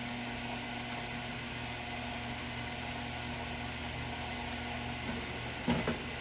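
Steady low machine hum, with a quick cluster of small knocks near the end.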